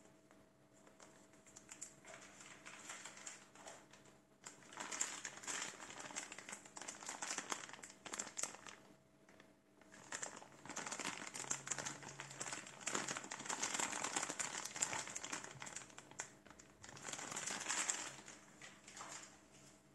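Clear plastic accessory bags crinkling as gloved hands handle and turn them over, in several stretches with short pauses between.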